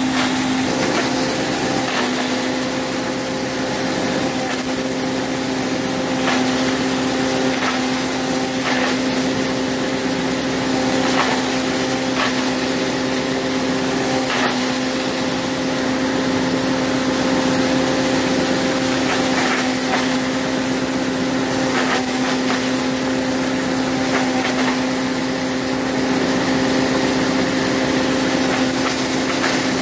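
Old maize grinding mill running steadily with a constant hum, grinding corn cobs fed by hand into its hopper. Short knocks come at uneven intervals as the cobs are broken up.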